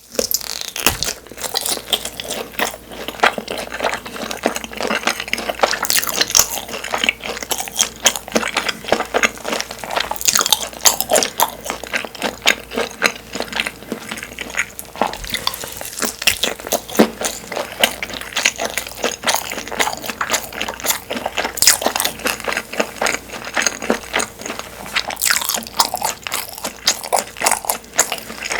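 Close-miked biting and chewing of Korean sundae (blood sausage): a dense, continuous run of quick mouth clicks and chewing noises.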